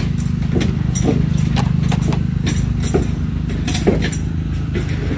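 A vehicle engine idling steadily with a low hum. About half a dozen short, light knocks sound over it as apples are handled in a wooden crate.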